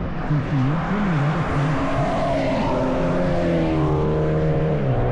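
Race car engine passing at speed, rising in pitch as it accelerates, with the pitch falling away near the end.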